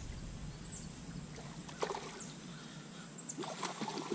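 Quiet open-air ambience on the water with a few faint, short, high chirps, likely small birds. A couple of brief sharper sounds come about two seconds and three and a half seconds in.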